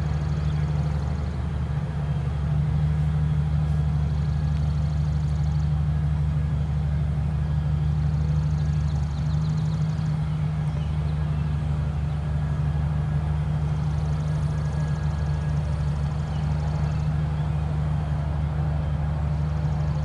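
A steady low engine hum, like a vehicle idling, with faint high trilling coming and going above it.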